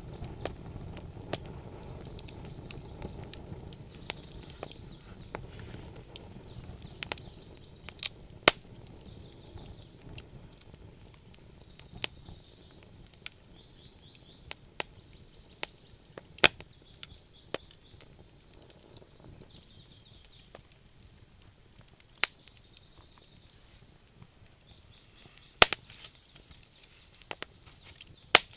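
Wood fire burning in a fireplace, crackling with sharp pops at irregular moments. A low rumble of flame at the start dies down over the first several seconds.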